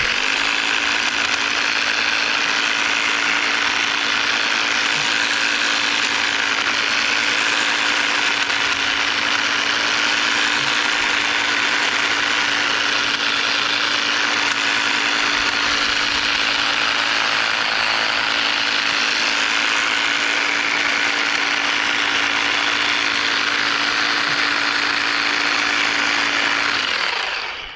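EGO battery-powered pole hedge trimmer running at a steady speed, its reciprocating blades chattering over a steady motor hum. It winds down near the end.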